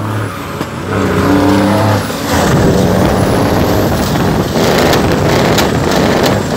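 A heavy truck's diesel engine heard from inside the cab while driving. It starts as a steady drone, turns into a rougher, noisier rumble about two seconds in, and has sharp rattles or clicks near the end.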